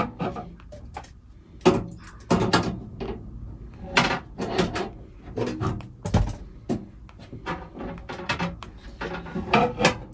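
Irregular knocks, clicks and clatters of objects being handled.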